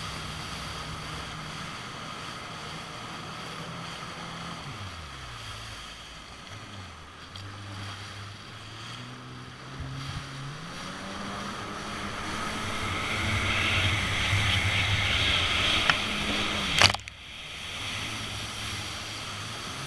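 Kawasaki jet ski's engine running under a hiss of water spray. The engine slows and falls in pitch about five seconds in, then revs back up, rising again about ten to twelve seconds in. A single sharp knock near the end is the loudest sound.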